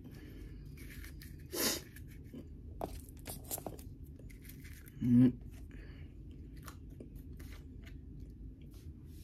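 Close-up mouth and hand noises of someone chewing a herbal pill and handling its small shell: scattered little crunches and clicks, a short sharp rustle about a second and a half in, and a brief louder low hum from the throat about five seconds in.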